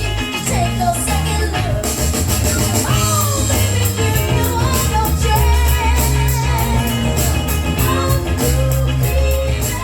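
Song with a singer, guitar and heavy bass playing through a pair of Imenso X64 and X63 Bluetooth speakers linked in TWS stereo. A steady beat comes in about two seconds in.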